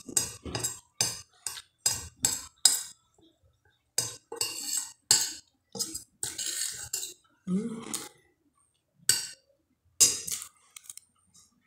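Metal spoon clinking and scraping against a glass bowl while scooping up food: a quick run of sharp clinks, about three a second, over the first three seconds, then slower, longer scrapes.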